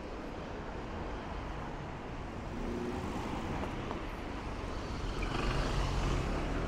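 City street traffic: cars driving through a junction, with a black London taxi passing close near the end, its engine and tyres swelling to the loudest point of the sound.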